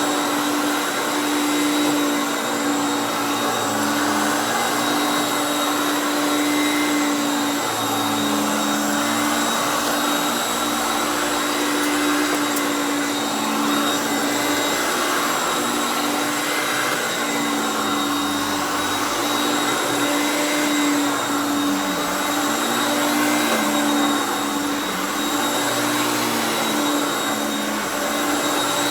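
Hoover Concept One U3101 upright vacuum with its 5.6-amp direct-air motor running steadily: an even motor whine over the rush of air, with a lower tone that wavers slightly in pitch.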